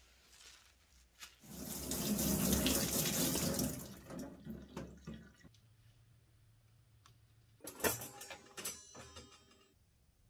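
Water running from a tap for about two seconds while a knife is wiped clean, followed later by a few light clicks and knocks.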